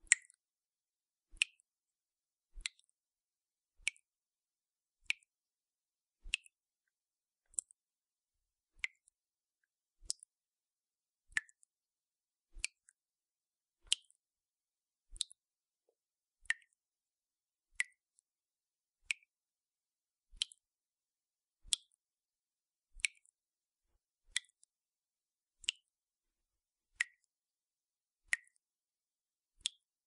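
Water dripping steadily from a tap, a short, high-pitched drip about every second and a quarter.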